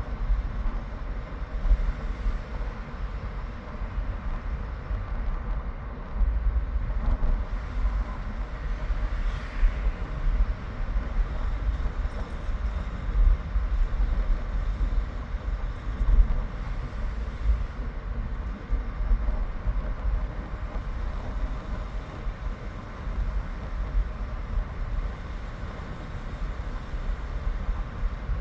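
Gusty wind buffeting the microphone: a continuous low rumble that swells and drops unevenly.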